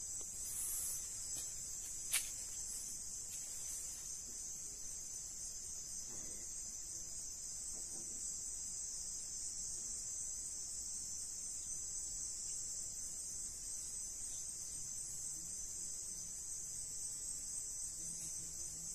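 Crickets chirping in a steady, high-pitched night chorus, with one sharp click about two seconds in.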